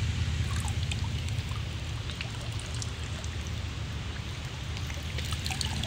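Shallow creek water running and trickling over rocks, with small scattered drips and splashes over a steady low rumble.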